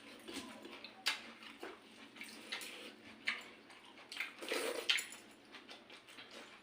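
Pakhala, rice soaked in water, being mixed and eaten: irregular wet squishes and small clicks, with a louder wet slurp about four and a half seconds in.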